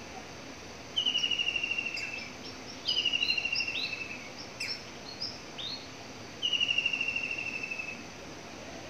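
A bird sings three rapid trills, each about a second and a half long and falling slightly in pitch, with short higher chirps between them. A steady faint background noise lies under them.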